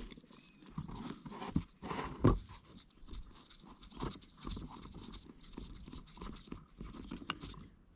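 Small clicks, scrapes and taps of a screwdriver and gloved hands working on a plastic outboard fuel lift pump as its inlet cover screws are taken out. The loudest knock comes about two seconds in.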